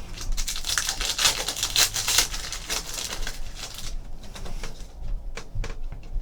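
A trading card pack wrapper crinkling and tearing open, with a dense crackle for about four seconds, then a few separate clicks as the cards are handled.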